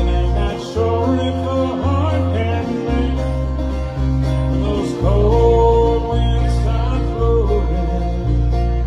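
Acoustic bluegrass band playing an instrumental passage: bass notes change every second or so under plucked strings, with a melody that slides between notes.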